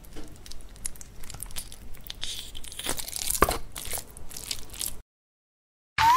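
Sticky, wet slime crackling and squelching on a hand as the fingers flex and spread, an irregular stream of small clicks and pops. It stops about five seconds in, and right at the end a loud rising whistle-like sound effect begins.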